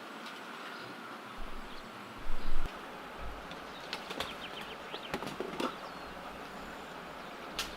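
Rustling and handling noise with scattered light clicks and knocks, and one brief louder bump about two seconds in.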